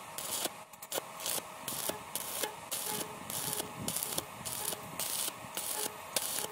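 Stick (arc) welding on a square steel tube frame: the arc crackles and hisses in short regular pulses, about two and a half a second, as the rod is worked along a tack weld.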